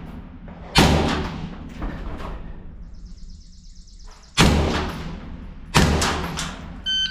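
Three rifle shots fired from inside a corrugated steel shipping container, the second and third about a second and a half apart, each sharp crack followed by a long echoing decay. A faint high buzzing tone sounds briefly before the second shot.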